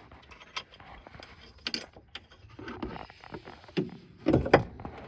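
Scattered metallic knocks and clinks of hand tools and parts during work on a car's rear differential, with a louder cluster of knocks about four and a half seconds in.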